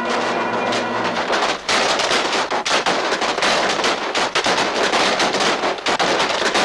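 Massed musket fire in a battle scene on an old film soundtrack: many shots cracking in quick, irregular, overlapping succession.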